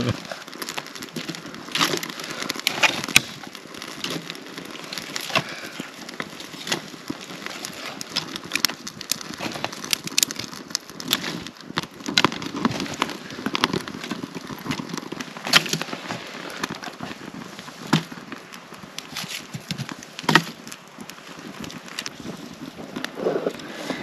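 Freshly lit campfire of birch bark and dry twigs crackling as the kindling catches, with irregular sharp pops and a few louder snaps.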